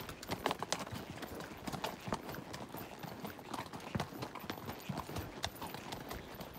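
Horse's hooves clopping on a rocky dirt trail at a walk, an uneven run of sharp knocks of stone and hoof.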